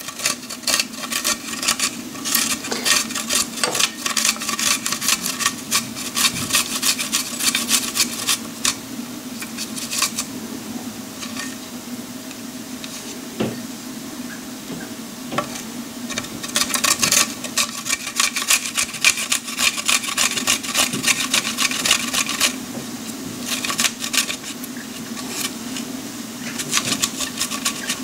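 Garlic cloves rubbed quickly back and forth on a metal hand grater, a fast rasping scrape. The scraping goes in runs, eases off for several seconds near the middle, then starts again, over a steady low hum.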